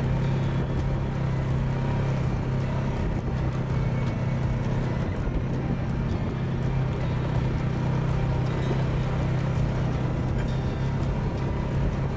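ATV engine running at a steady speed while riding a trail, with a constant hum and faint ticks and knocks throughout.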